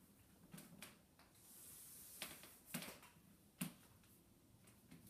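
Chalk on a chalkboard as lines are drawn: a handful of short taps and scratches in a quiet room, the sharpest about three and a half seconds in.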